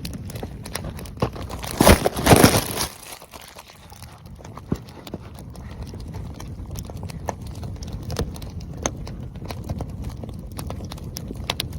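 Oak firewood burning: irregular sharp crackles and pops over a low, steady rush of flames, with a loud burst of dense crackling and rustling about two seconds in.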